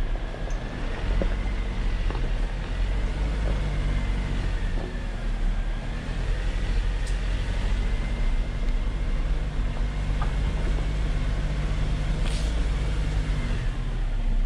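Jeep Wrangler JL engine running steadily at low trail speed with a deep rumble, its tires rolling over a dirt and gravel trail. A faint high whine wavers slowly in pitch above the engine.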